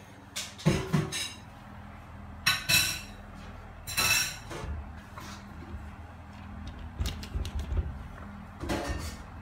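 Teddy-bear keychains with metal rings clinking and knocking against a glass shower door, in short bursts, with a few brief high-pitched squeaky sounds among them.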